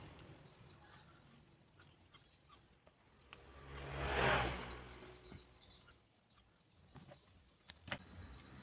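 Black electrical tape being pulled off its roll and wrapped around a small part: a rasp that swells and fades about four seconds in, among faint handling clicks and rustles.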